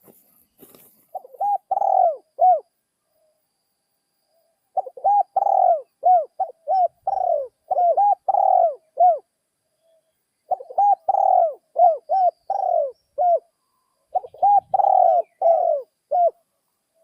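Spotted dove cooing: four bouts of repeated, arched coo notes with short pauses between the bouts.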